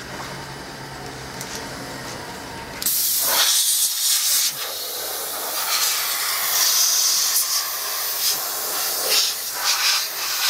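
Compressed-air blow gun blasting dust out of an open desktop computer case: a loud hiss begins about three seconds in and comes in repeated blasts that swell and ease.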